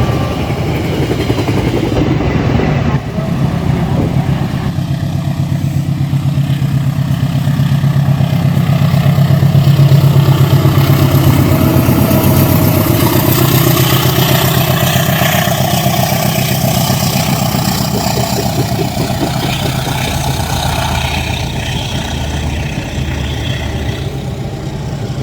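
Indonesian passenger train passing at speed: the diesel locomotive's engine hum swells to its loudest about ten seconds in. A long run of rapid wheel clatter on the rails follows, then fades slowly as the train moves away.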